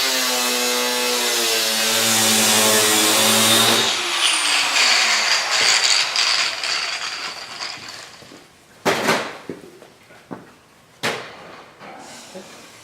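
A power tool's motor running with a steady hum and hiss, cut off about four seconds in and winding down with a falling pitch, followed by a few sharp knocks of metal work.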